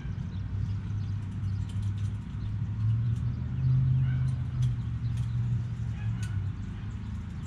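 A low engine hum running steadily, rising a little in pitch and loudness around the middle, with a few bird chirps over it.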